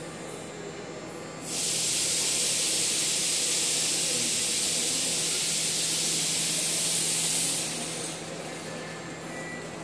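Steady loud hiss of compressed air venting from a regional train standing at the platform. It starts abruptly about a second and a half in, holds for about six seconds and fades away, over a steady low hum from the train.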